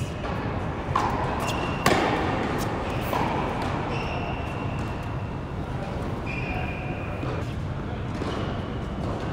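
Tennis ball struck by rackets and bouncing on an indoor hard court: a few sharp hits, the loudest a forehand struck close by just under two seconds in, ringing on in the hall.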